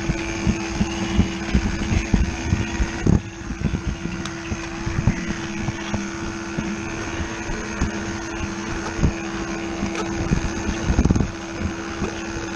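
Battery-powered Lego Duplo 10508 train locomotive running along plastic track: its small motor gives a steady hum while the wheels and couplings clatter and click over the track.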